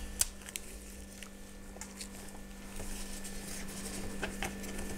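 Light rustling with scattered small clicks as orchid bark potting mix is handled around a plant in a pot, over a faint steady hum.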